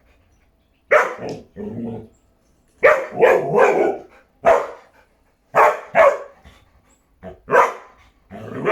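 A dog barking repeatedly: short, sharp barks, some singly and some in quick runs of two or three, with silent pauses of about a second between groups.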